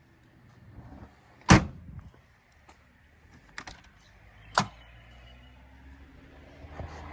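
Two loud slams about three seconds apart, with a few light clicks between them, typical of a car's doors or lids being shut.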